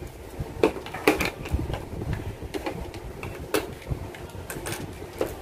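Plastic model-kit parts being handled and set down on a tabletop. A handful of sharp, irregular clicks and taps sit over a low rumble of handling noise.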